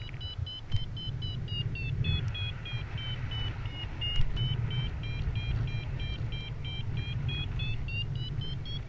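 Paragliding variometer beeping steadily, two to three short beeps a second, signalling that the glider is climbing; the pitch dips in the middle and rises near the end as the climb strengthens. Wind rushing over the microphone underneath.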